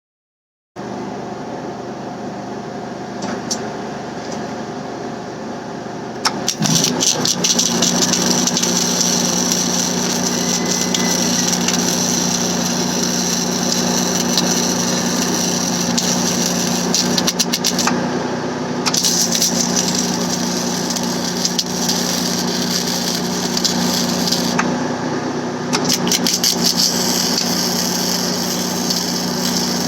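A small engine running steadily, starting abruptly just under a second in and getting louder about six seconds in, with a high hiss on top that drops out briefly twice.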